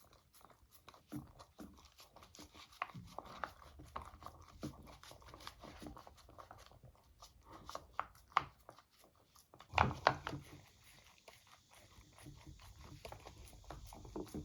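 Beagle eating a dog ice cream treat: a string of small wet chewing, licking and crunching clicks, busiest about ten seconds in.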